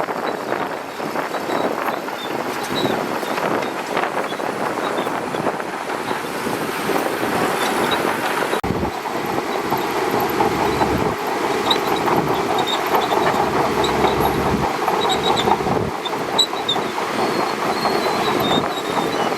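Shantui DH17C2 crawler bulldozer running, its steel tracks clanking and squeaking over the diesel engine noise. A deeper rumble joins for several seconds in the middle.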